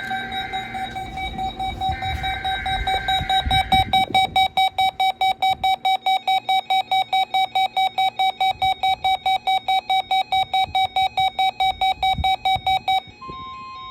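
Weather radio receiver's electronic alarm beeping rapidly, about five beeps a second, set off by the SAME data header of a NOAA Weather Radio weekly test. Two bursts of warbling SAME data tones sound over it in the first four seconds. About 13 seconds in, the beeping stops and a steady single tone, the weather radio warning alarm tone, begins.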